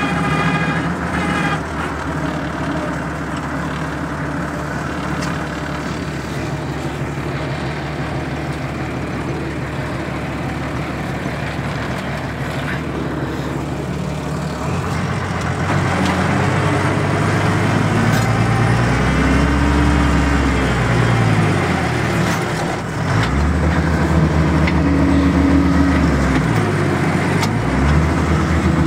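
Farm tractor engine with its exhaust pipe cut short, running steadily, heard from the cab. From about halfway its pitch rises and falls several times as the revs go up and down.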